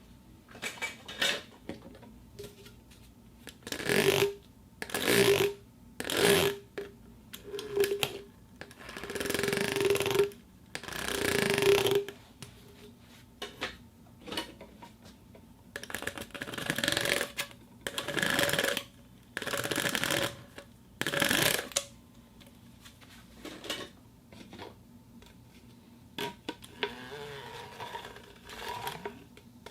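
A plastic tube being twisted by hand, making a series of short noisy bursts with pauses between them, several of them carrying a squeaky tone.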